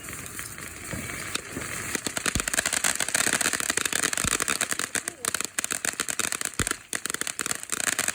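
Consumer fireworks crackling rapidly, a dense string of sharp pops that starts about two seconds in, with three low thuds spread through it.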